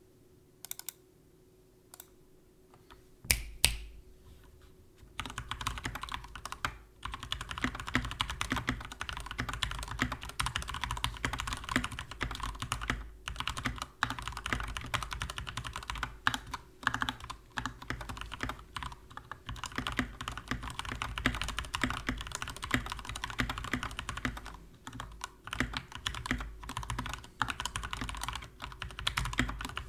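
Typing on a Skyloong GK61x 60% mechanical keyboard with lubed Gateron Yellow linear switches, lubed stabilizers and G.Skill Crystal Crown keycaps. A few single keystrokes come first, then fast continuous typing starts about five seconds in.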